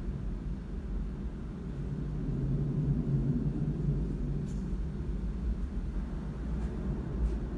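Low, steady vehicle rumble, swelling a little around the middle with a low hum, and a couple of faint clicks later on.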